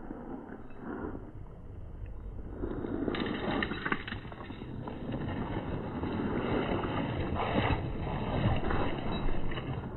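Radio-controlled scale 4x4 truck crawling over dirt and loose stones: its electric drivetrain running with the tyres rolling over the ground, louder from about three seconds in, with scattered clicks of stones.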